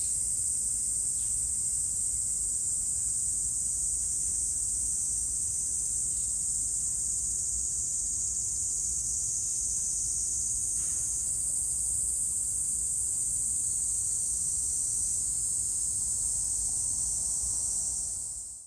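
Chorus of summer cicadas: a steady, high, shrill hiss that fades out at the very end.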